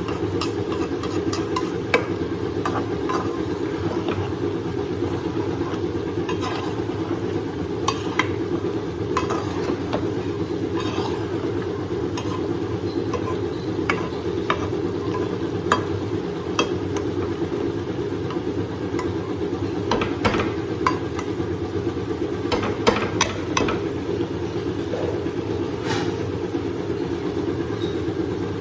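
A spoon stirring food in a cooking pan: scattered clicks and scrapes of the spoon against the pan over a steady low hum.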